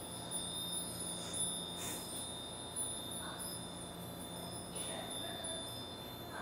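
Japanese wind bells (fūrin) ringing together: a steady shimmer of high chiming tones with a few soft strikes.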